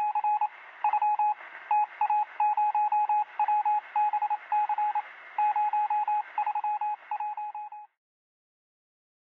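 Morse code beeps over radio hiss: a single steady tone keyed on and off in quick short and longer pulses, stopping abruptly near the end.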